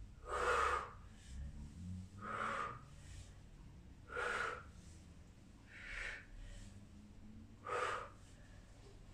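A woman breathing out hard in a steady rhythm, five short exhalations about two seconds apart, one with each standing side bend of the exercise.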